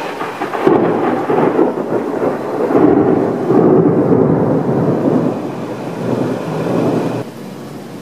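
Thunder rumbling and rolling for about seven seconds over the steady hiss of rain; the rumble cuts off suddenly near the end.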